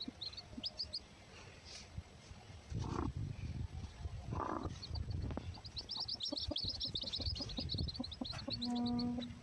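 Broody Aseel hen sitting on eggs that are due to hatch, with low rumbling close to the microphone. From about six seconds in comes a rapid run of high chirps, and a short low hum sounds near the end.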